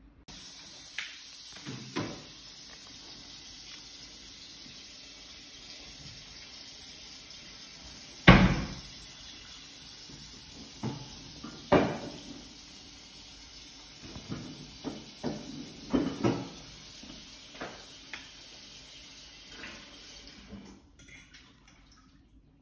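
Dishes being handled: scattered knocks and clinks of plates and cutlery, the loudest about eight seconds in, over a steady hiss.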